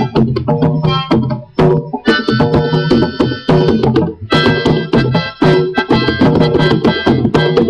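Layered recording of hand drums, a drum played as a djembe and a konkolo rhythm track, in a quick steady pattern, with harmonica chords held over it from about two seconds in.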